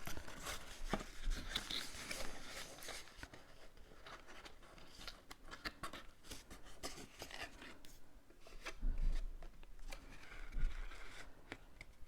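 Cardstock pieces being handled, lined up and pressed together by hand: scattered rustles, rubs and light clicks of paper, with a couple of dull bumps against the work surface near the end.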